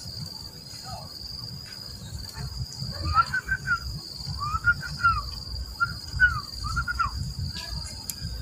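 Steady, high-pitched drone of crickets or similar insects, with a low rumble underneath. From about three seconds in come several short arching calls, each rising and falling in pitch.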